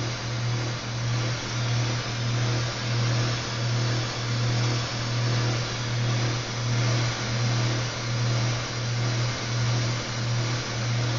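Gas torch flame burning with a steady hiss and a low rumble that swells and dips about once a second, heating the work so the silver solder flows.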